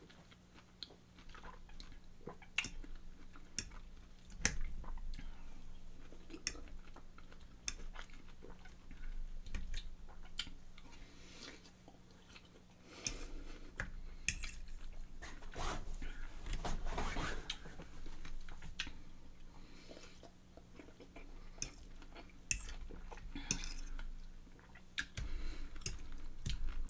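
Chewing soft, juicy canned pineapple rings topped with mustard, with a metal fork clicking and scraping against the plate at irregular moments.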